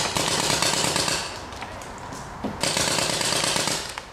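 Paintball markers firing fast strings of shots: one string stops a little over a second in, and another starts past halfway and runs for about a second more.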